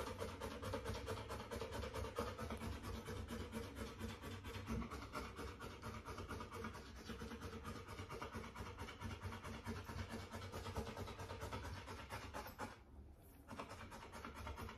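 Rottweiler puppy panting in a rapid, even rhythm, breaking off briefly near the end.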